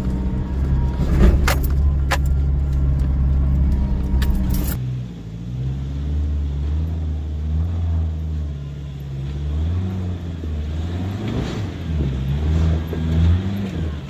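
Toyota Hilux 4x4 engine revving under load on an off-road climb, with several sharp knocks in the first few seconds, then the revs rising and falling again and again.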